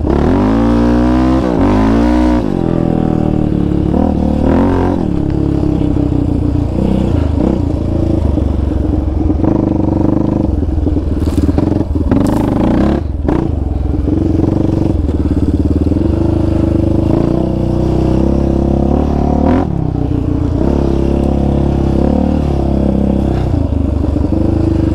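Yamaha Raptor 700 sport quad's single-cylinder four-stroke engine being ridden hard off-road, revving up and down as the throttle opens and closes. The revs climb in the first couple of seconds, and a few sharp knocks come about halfway through.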